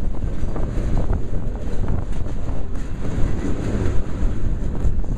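Freight train of railroad tank cars rolling past: a steady low rumble of steel wheels on the rails with scattered light clicks, with strong wind buffeting the microphone.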